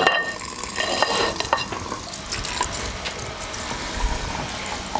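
Hot oil sizzling and crackling over the chili flakes, garlic and spices heaped on a dish of water-boiled beef, with scattered sharp crackles.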